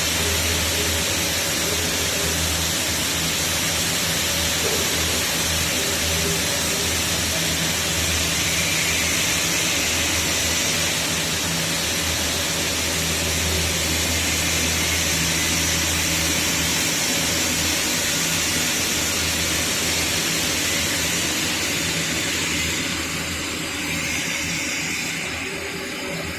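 Arc welding on a 32-inch pipe-to-flange joint: the welding arc's steady crackling hiss with a low hum underneath, getting a little quieter in the last few seconds.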